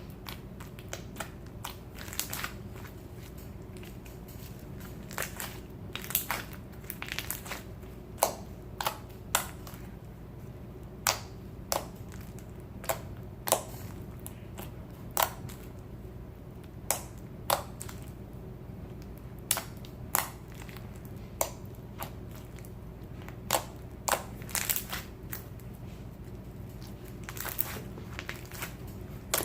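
Crunchy bead-filled slime being squished by hand, giving sharp, irregular pops and crackles about once a second.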